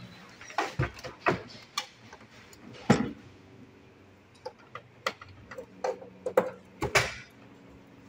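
Irregular small clicks and knocks as a USB cable's plug is handled and pushed into the rear USB port of a flatbed scanner, the loudest knock about three seconds in.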